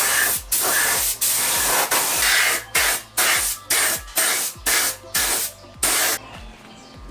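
Paint spray gun hissing in about a dozen short bursts, on and off about every half second as the trigger is pulled and released, applying anti-corrosion primer; the bursts shorten and stop about six seconds in.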